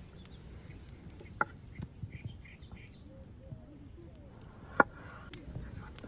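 Chef's knife slicing through a red bell pepper onto a wooden cutting board: a few scattered knocks of the blade hitting the board, the sharpest about a second and a half in and near the end.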